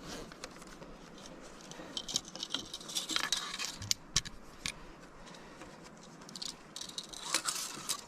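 Camping gear being handled and unpacked: scattered sharp clicks, light rattles and clinks with short bursts of rustling.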